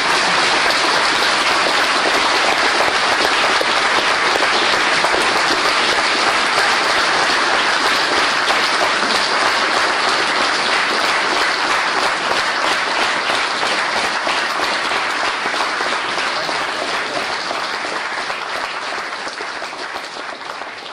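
Lecture audience applauding steadily, a dense patter of many hands clapping, fading out near the end.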